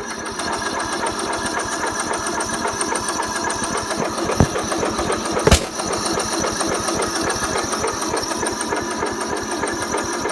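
Craftsman lawnmower's electric starter cranking the engine steadily with a fast, even churning, and the engine does not catch: a no-start, with the battery suspected. Two sharp clicks come about halfway through.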